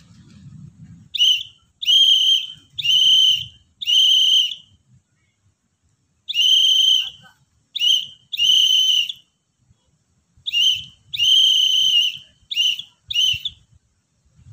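A whistle blown in short and long blasts, spelling Morse code letters: J (dot-dash-dash-dash), then after a pause K (dash-dot-dash), then L (dot-dash-dot-dot).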